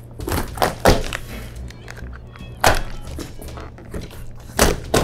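Utility knife slitting packing tape along a cardboard box seam: several sharp scrapes and thunks on the cardboard, over background music.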